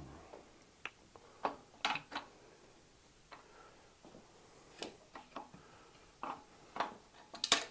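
Scattered light clicks and knocks of tools and bike parts being handled, irregularly spaced, with the loudest knock near the end.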